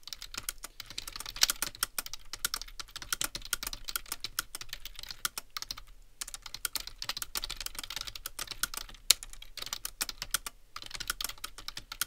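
Fast touch-typing on a computer keyboard: a rapid, uneven stream of key clicks, with brief pauses about halfway through and again near the end.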